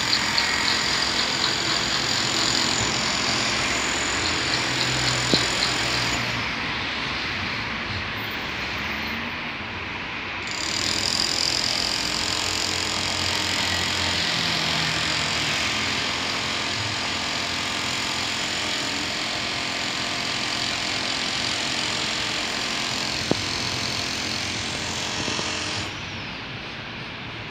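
Steady outdoor rumble and hiss, with a couple of faint clicks.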